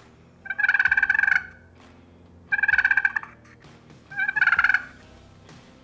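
Pot-style friction turkey call with a striker dragged across its surface, making three rolling, stuttering purrs of about a second each with short pauses between. It imitates a wild turkey's purr, which is typical of a feeding turkey.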